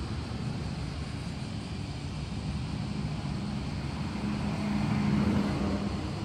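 Steady low outdoor rumble with a distant engine hum that grows louder toward a peak about five seconds in, then eases off.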